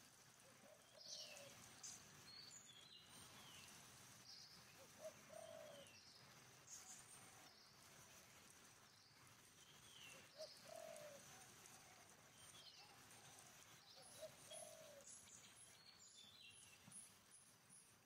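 Faint wild bird calls: a short low cooing call repeated every few seconds, with scattered higher chirps over it and a quick run of very high pips near the end.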